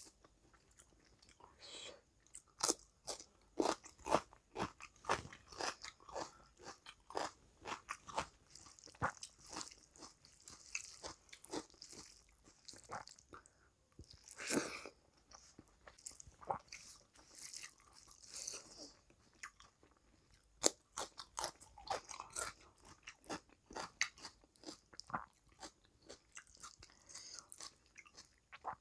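Close-miked eating sounds: a person chewing mouthfuls of rice and curry eaten by hand, a quick run of wet mouth clicks and smacks, with fingers squelching rice and curry together between bites.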